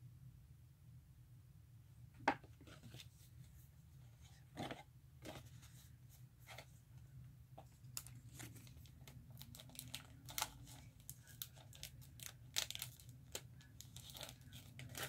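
Paper handling: a folded paper calendar and a paper envelope rustling and crinkling, in scattered short crackles with one sharp crack about two seconds in, becoming denser in the second half.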